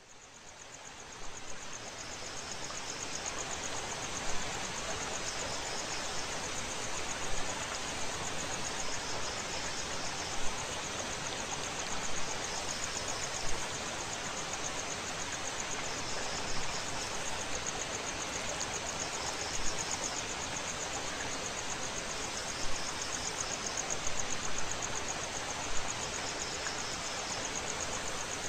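Insects trilling continuously at a high pitch over an even background hiss, with a second, shorter chirp repeating every few seconds. The sound fades in over the first second or two.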